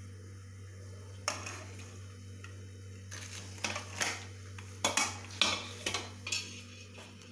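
A metal utensil clanking and scraping against a metal cooking pan, in irregular knocks that come thicker from about three seconds in, over a steady low hum.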